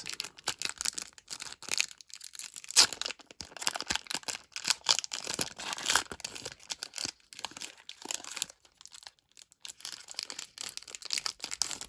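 Foil Pokémon booster pack wrapper crinkling and being torn open, in irregular crackles with a few sharper rips.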